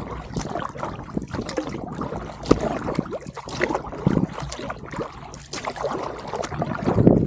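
Kayak paddle strokes splashing in the water, with dripping and small irregular clicks and knocks.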